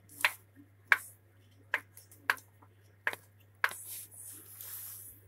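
Sharp, isolated clicks or light knocks, about seven of them at uneven gaps of half a second to a second, with a short rustling hiss about four seconds in. A faint steady low hum runs underneath.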